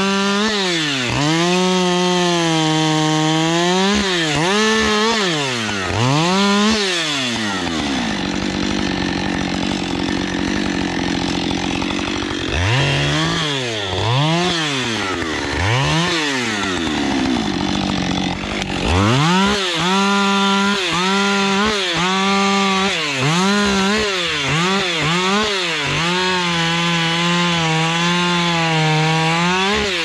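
Two-stroke chainsaw cutting through a fallen tree trunk. The engine revs up and down over and over and is held at full throttle through the cuts, dropping lower for a few seconds near the middle.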